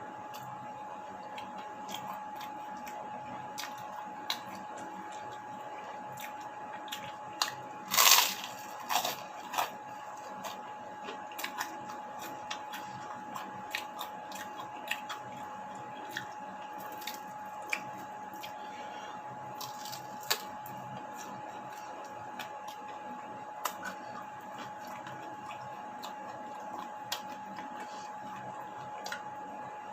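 A person eating: scattered small chewing, crunching and smacking clicks, with a louder sharp crunch about eight seconds in and another around twenty seconds, over a steady high-pitched hum.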